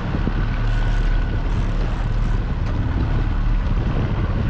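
Boat motor running steadily, with wind buffeting the microphone.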